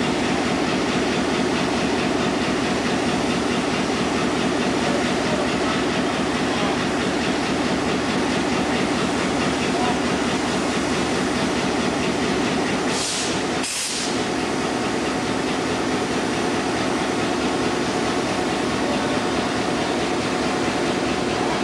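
A pair of EMD 567 two-stroke diesel engines in streamlined EMD cab-unit locomotives idling steadily and evenly. Two short hisses cut in a little over halfway through.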